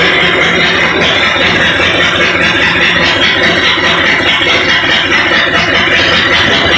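Shelby GT500's carbureted V8 engine running steadily, a fast, even clatter of firing pulses with no change in speed.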